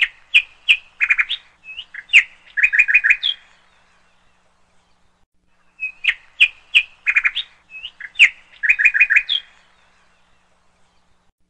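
A songbird singing two near-identical phrases of quick chirps and short rapid trills, each lasting about three and a half seconds, with a pause of a couple of seconds between them.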